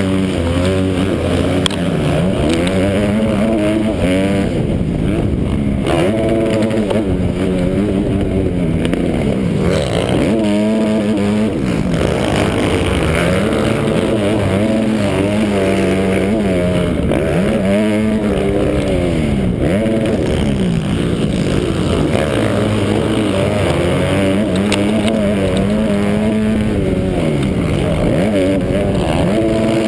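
Motocross bike engine at race pace, close up from the rider's helmet, revving up and dropping back again and again as the rider accelerates and shifts through the corners.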